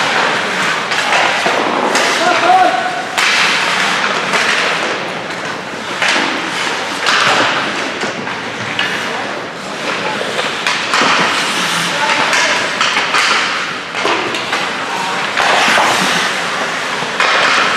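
Ice hockey play on an indoor rink: skates scraping the ice, with repeated sharp clacks and thuds from sticks and puck, and indistinct shouting voices.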